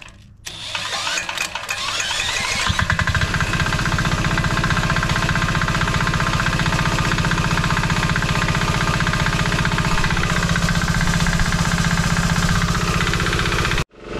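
Small diesel engine of a homemade generator, spun over with a cordless drill, catching after about two seconds and then running steadily with an even knocking beat. The sound cuts out abruptly near the end.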